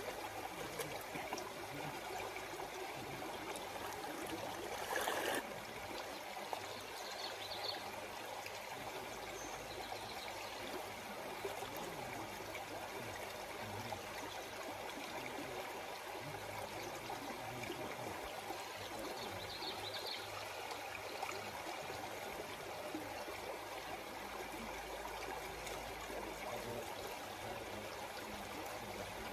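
Stream water running steadily, with one brief louder noise about five seconds in.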